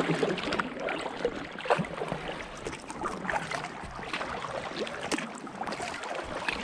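Kayak paddle strokes: the blade dipping into calm river water with short, irregular splashes and drips beside an inflatable kayak.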